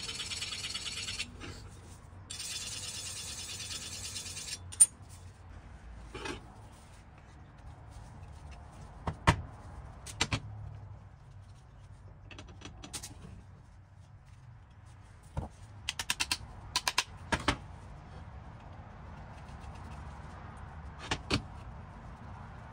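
Brush axe edge being sharpened by hand, a rasping scrape in two stretches of a couple of seconds each. A sharp click follows, then scattered metallic clicks and taps, with a quick run of them near the three-quarter mark.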